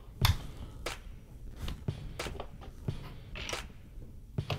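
LEGO plastic pieces being handled and pressed together: irregular sharp clicks and taps, about eight of them.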